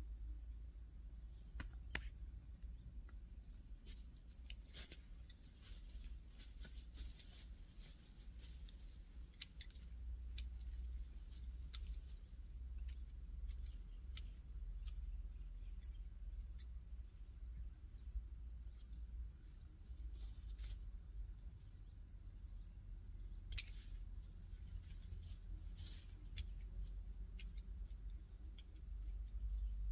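Faint outdoor ambience: a steady high-pitched insect drone over a low wind rumble, with scattered light clicks from pruning work in a young durian tree's branches.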